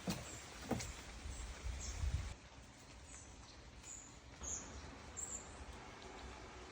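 Forest ambience with a small bird giving short, high chirps every second or so. A couple of sharp clicks and a low rumble sound in the first two seconds.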